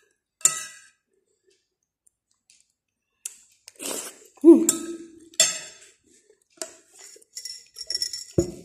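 A metal spoon clinks and scrapes against a ceramic plate several times. The sound is a series of short, sharp strikes, some of them ringing briefly.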